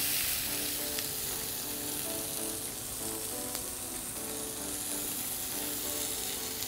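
Shish tawook chicken pieces sizzling in a frying pan, a steady hiss with a few light clicks.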